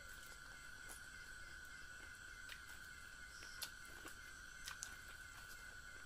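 Faint eating sounds: a few short, sharp clicks as boiled corn kernels are bitten off the cob and chewed, over a steady high-pitched background tone.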